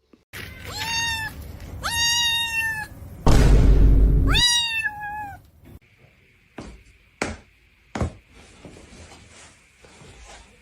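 A cat meowing three times, each a drawn-out call of about a second that rises at the start and sags slightly at the end. A loud, rough burst of noise comes between the second and third meow, and a few sharp knocks follow in the second half.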